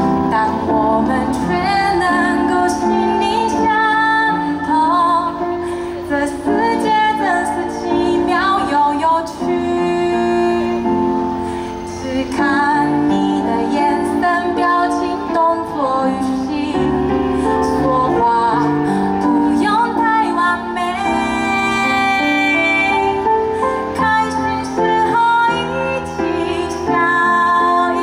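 A woman singing with instrumental backing music, her voice holding long notes that waver in pitch.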